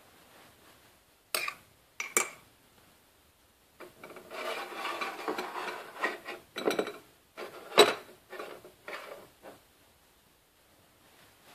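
Teaspoon and china cup clinking and scraping against each other and the sink: a few sharp clinks, a stretch of scraping in the middle, then more clinks, the loudest a little over halfway through.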